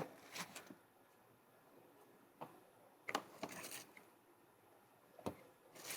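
Faint handling noises of a new outer CV joint kit being unpacked: a few light clicks and short rustles of packaging and parts.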